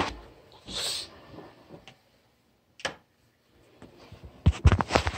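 Handling noise from a phone being carried while filming: a short hiss about a second in, a single click, then a quick run of knocks and thumps near the end.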